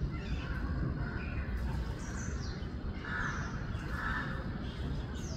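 A crow cawing twice, about a second apart, just past the middle, among short high downward-sliding chirps of small birds, over a steady low rumble.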